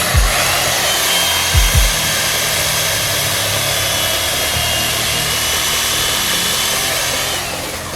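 Chainsaw cutting into a block of ice at full throttle: a steady, loud, hissing cut that starts suddenly and eases off about seven and a half seconds in.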